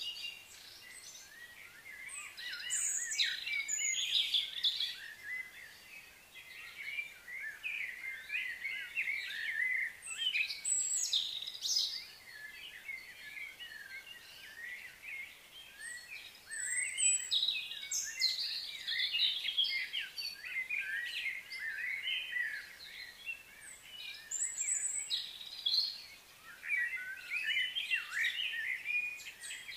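Small birds chirping and twittering in busy bursts, with quieter spells between.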